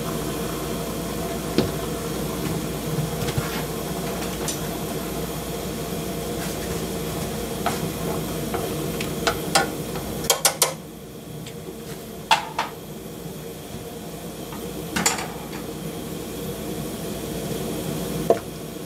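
Metal utensils clinking and knocking against a cooking pot now and then, with a quick run of clinks about ten seconds in, over a steady hum that cuts off at that same moment.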